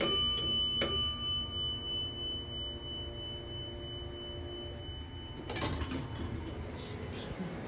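Elevator arrival chime: two bell-like dings just under a second apart, ringing on and fading over several seconds. A rattling noise starts near the end.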